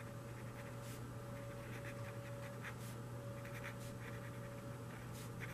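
Felt-tip marker writing on a whiteboard: short, irregular scratching strokes as a line of words is written, over a faint steady hum.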